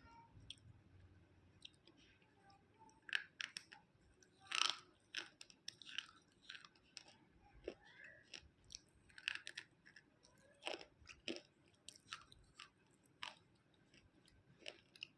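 A person chewing crunchy food, with irregular sharp crunches that start about three seconds in and are loudest about a second and a half later.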